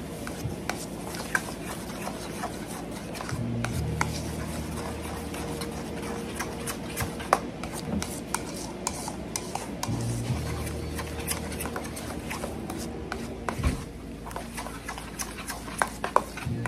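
A utensil stirring a thick mayonnaise-based sauce in a stainless steel bowl, with irregular clinks and scrapes against the metal. A low steady hum starts and stops twice in the background.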